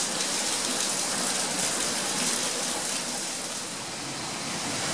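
Rain falling steadily in a dense, even hiss.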